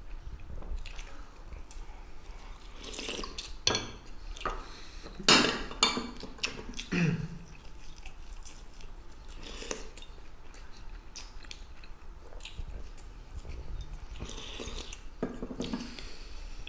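Metal spoons clinking against ceramic soup bowls, with chewing during fast eating. There are scattered sharp clinks, the loudest about five seconds in.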